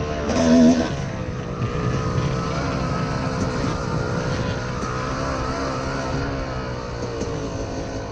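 Two-stroke dirt bike engine running under way at a fairly steady, slowly wavering pitch, heard through a helmet-mounted camera with wind rumble underneath.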